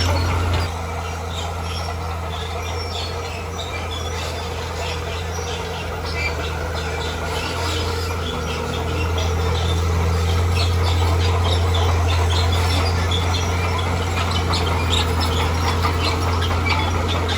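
Heavy machine's diesel engine running steadily, easing off about a second in and picking up again about halfway, with many short high chirps or squeaks over it.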